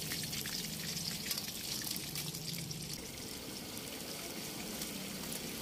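Cornflake-coated chicken pieces deep-frying in hot oil in a large iron kadhai: a steady sizzle with fine crackling.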